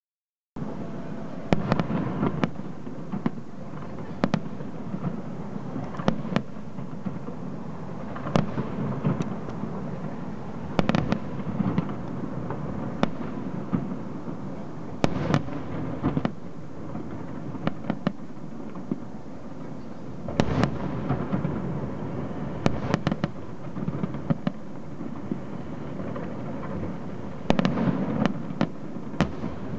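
Aerial firework shells bursting in a continuous barrage: sharp bangs every second or so, in quick clusters at times, over a steady low rumble.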